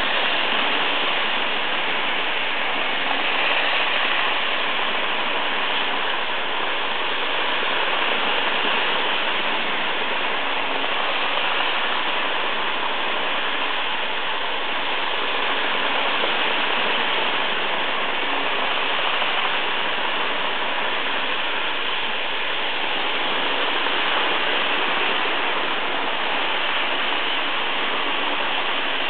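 Three model locomotives — a Roco V 160, a Märklin Henschel and an old Swiss engine — running fast on Märklin metal track: a steady rushing rattle of wheels and motors.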